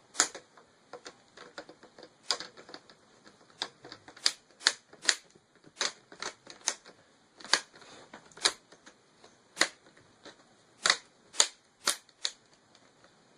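Plastic clips of a laptop's screen bezel snapping into the display lid as it is pressed back on, a long irregular series of sharp clicks. The clicks are louder in the middle and near the end.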